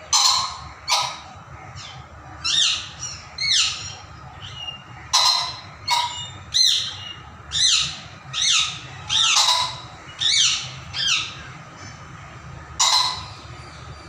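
Ring-necked pheasant calling: a run of short, harsh squawks, each falling in pitch, some coming in quick pairs, with gaps of a second or so between them.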